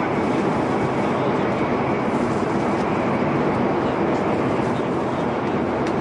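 Steady rumbling noise of a metro train running at speed, with a few faint clicks.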